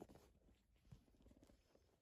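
Near silence: room tone with a few faint soft ticks, the clearest about a second in.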